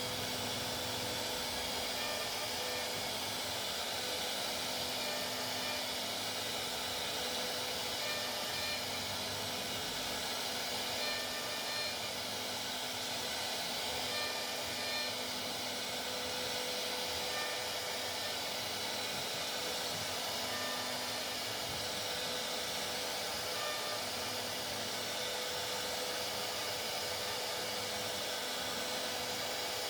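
CNC router running steadily while machining, a constant hiss with faint whining tones that come and go.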